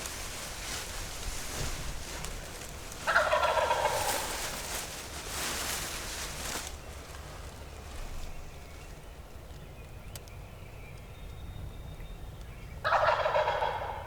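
A wild turkey gobbler gobbling twice, each gobble a loud rattling call about a second long. The first comes about three seconds in and the second near the end.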